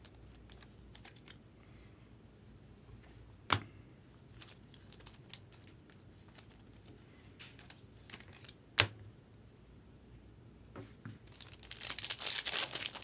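Quiet handling of trading cards with two sharp clicks, then a trading card pack's wrapper crinkling as it is torn open near the end.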